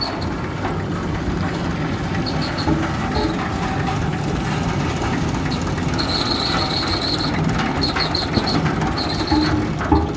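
Road roller's engine running steadily as the machine moves, with short high squeaks coming in small groups.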